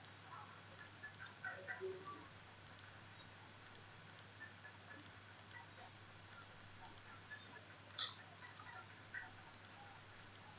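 Faint, scattered computer mouse clicks over a low steady hum, with one sharper click about eight seconds in.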